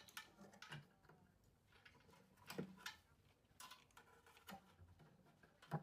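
Faint, scattered clicks and light taps of small metal and plastic parts being handled, about half a dozen over a few seconds.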